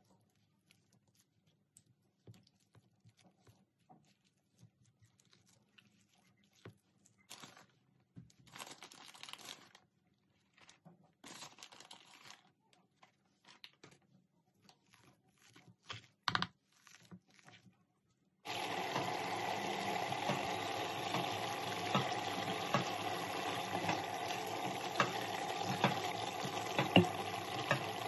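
Wire potato masher squashing cooked potatoes in a bowl: scattered soft squelches, scrapes and clicks. About eighteen seconds in, a louder steady sound of mince sauce bubbling as it reduces in the Ninja Foodi's steel pot starts abruptly, with small pops through it.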